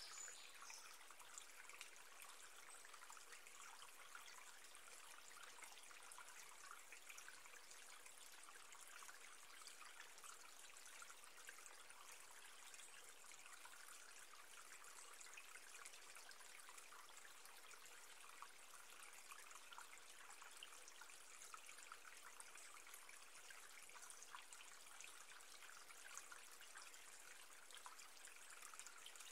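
Faint, steady trickling of running water, like a small stream, under a long meditation pause.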